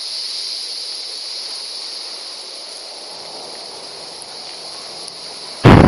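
Steady outdoor hiss, then near the end a sudden loud, deep rumble breaks in and keeps going.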